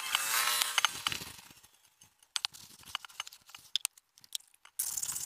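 Metal scraper grating and clinking on an aluminium alloy car wheel as the wheel is cleaned ahead of painting: a squealing scrape for about the first second, then a few scattered light clicks and taps, and scraping noise again near the end.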